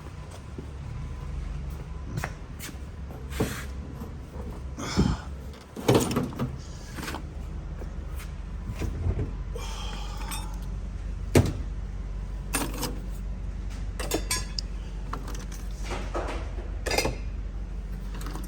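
Scattered knocks, clunks and rattles of someone rummaging through storage drawers and bins for nuts, with one sharp knock about eleven seconds in.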